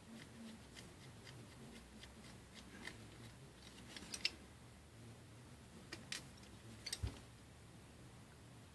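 Faint, scattered small clicks and taps of a pentalobe screwdriver and tweezers on an iPhone 5 as its two bottom screws are taken out, with a few sharper ticks around the middle.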